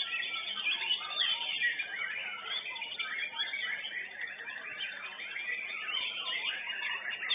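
White-rumped shama (murai batu) singing in competition: a dense, unbroken run of fast whistles, chatters and gliding notes, the high end clipped off by the recording.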